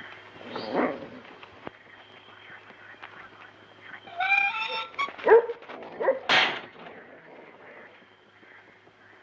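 German Shepherd dog giving a short whine about four seconds in, followed by three or four sharp barks.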